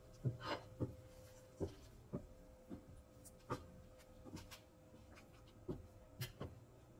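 Wooden spatula stirring a thick curry sauce in an enamelled cast-iron pan, with soft scrapes and about a dozen irregular knocks against the pan.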